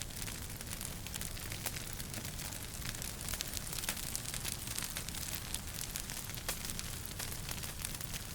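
Wood fire in a fireplace crackling, with frequent small sharp pops over a steady low rumble and hiss.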